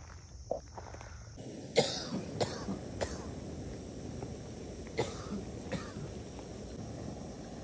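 Coughing: three harsh coughs close together about two seconds in, the first the loudest, then two more about five seconds in.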